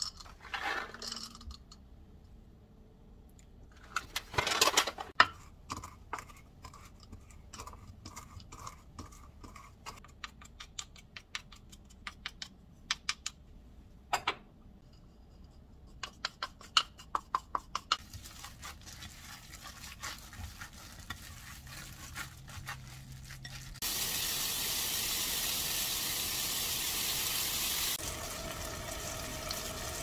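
Wooden pestle knocking and grinding pine nuts in a wooden mortar: a long run of irregular sharp clicks and knocks. Near the end comes a steady rushing hiss of about four seconds that stops suddenly.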